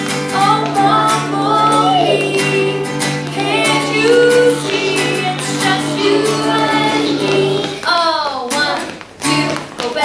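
Acoustic guitar strummed steadily while children and a woman sing along. The music drops out briefly about eight seconds in and then comes back.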